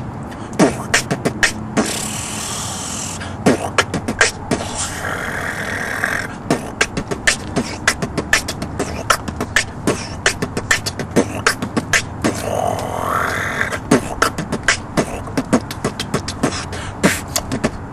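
Human beatboxing: a fast groove of vocal kick drums and clicks, with hissing snare and hi-hat sounds and a rising vocal sweep a little after the middle.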